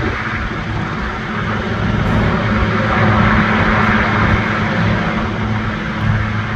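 Large five-bladed helicopter hovering overhead with a load slung on a long line: a steady rotor and turbine din over a low hum, swelling slightly a few seconds in.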